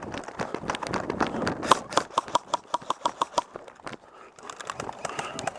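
Paintball markers firing: a quick string of about eight sharp pops, roughly five a second, from about two seconds in, with scattered single shots before and after.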